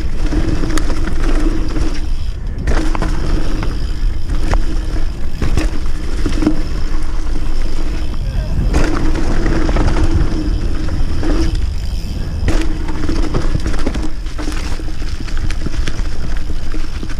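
Mountain bike ridden fast down a dirt forest trail: heavy wind rumble on the camera, tyres on dirt, and sharp rattles and knocks over bumps. A steady buzzing hum comes and goes, dropping out several times.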